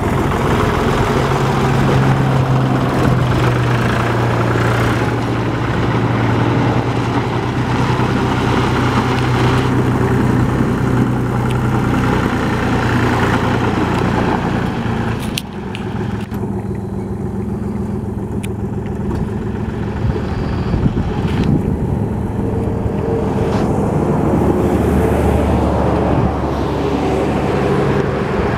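Engine of a Tyton IH334 compact tractor running steadily as the tractor is driven around. Its sound dips briefly and changes about halfway through, then carries on.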